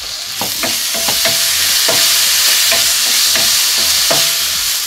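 Ginger-garlic paste and sliced shallots sizzling in hot oil in a nonstick kadai, stirred with a wooden spatula. The sizzle swells louder about half a second in, under quick scraping strokes about three a second.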